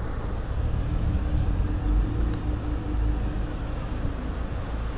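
Steady low rumble of city street traffic, with a faint hum over the first few seconds and a few light clicks.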